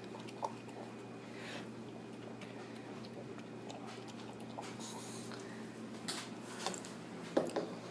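Quiet room with a steady low hum and a few scattered soft clicks, the strongest near the end.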